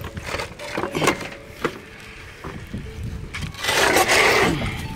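Metal chain clinking and wood knocking as a wooden gate on a metal pipe post is handled, with a louder rush of noise about four seconds in. Strong wind buffets the microphone underneath.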